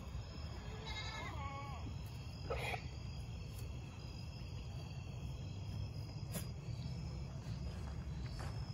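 A goat bleats once, a short wavering call about a second in, over a steady low rumble.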